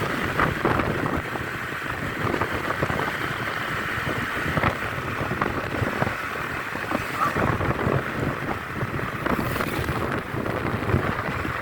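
Wind buffeting the microphone over the rushing noise of a vehicle moving at speed, steady with small irregular gusts and no horn sounding.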